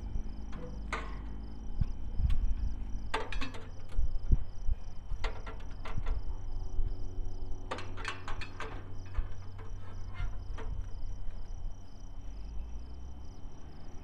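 Insects chirping in a steady high pulse over a low steady rumble, with several short clusters of clicks and knocks.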